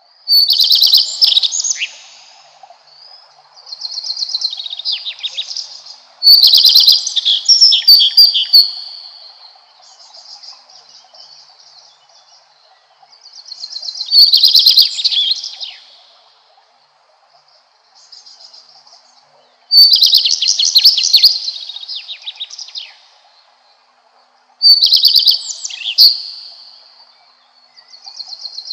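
Common redstart singing: short high song phrases repeated every few seconds, each opening with a clear held whistle and running into a rapid twittering end, with quieter phrases between the loud ones.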